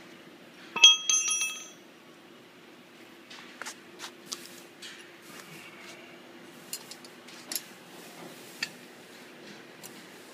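A sharp metallic clink about a second in that rings on briefly like a bell, then scattered light metal clicks and ticks as bolts, washers and nuts are handled and fitted at the steel hub of a combine harvester's tine reel.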